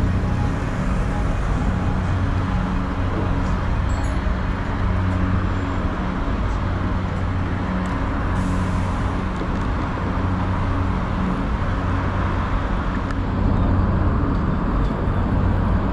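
Road traffic at a busy city intersection: cars and buses passing, with a steady low engine hum under it, swelling a little near the end.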